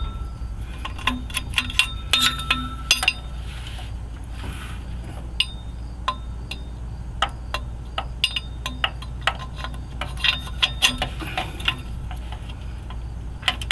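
Wrench work on the exhaust collector bolts of a 1963 Chevy C30: irregular sharp metallic clicks and clinks, busiest in two spells, over a steady low hum.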